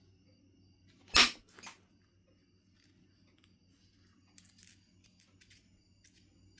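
Knapping blow on Knife River Flint: one sharp crack about a second in, a fainter knock half a second later, then a scatter of light clicks and ticks in the last two seconds.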